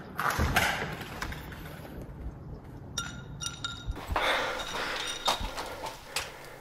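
Scattered knocks and clatters of debris being thrown and landing on a bare floor, mixed with footsteps and shuffling. There is a short ringing tone about three seconds in.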